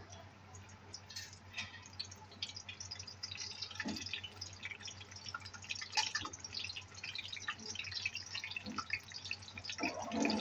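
A sandwich frying in a hot pan over medium heat: irregular crackling and spitting that grows busier after the first couple of seconds, with a short duller handling sound near the end.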